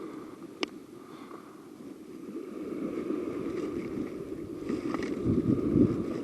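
Wind buffeting the microphone in gusts, swelling stronger toward the end, with a single sharp click a little over half a second in.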